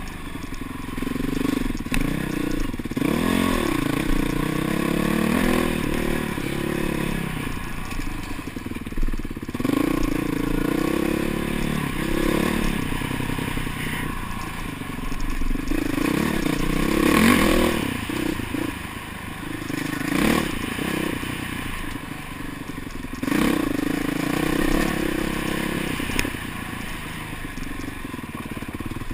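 Dirt bike engine revving up and down over and over as the bike is ridden along a rough trail, with occasional knocks.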